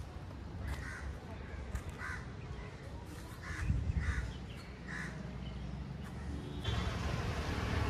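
A crow cawing, four short caws about a second and a half apart. Near the end a steady background noise comes in.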